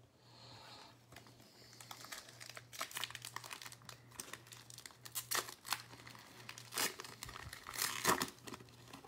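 Foil wrapper of a basketball trading card pack crinkling and tearing as it is opened by hand, in irregular crackles that are loudest about five, seven and eight seconds in.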